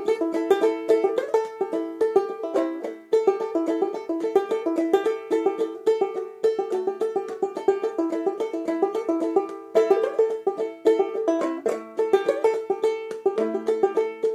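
Banjolele (banjo ukulele) played clawhammer style: a fast, steady run of plucked notes and brushed strums.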